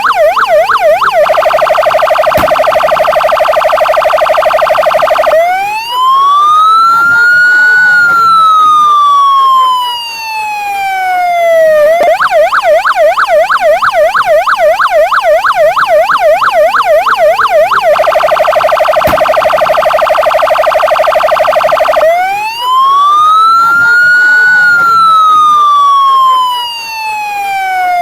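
Police patrol car's electronic siren cycling through its tones: a fast yelp, then an even faster rapid warble, then a long wail that rises for about two seconds and falls for about four. The cycle runs twice.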